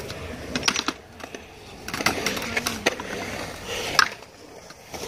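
Stunt scooter wheels and deck rolling and clacking on concrete coping: scattered sharp knocks, the loudest about four seconds in.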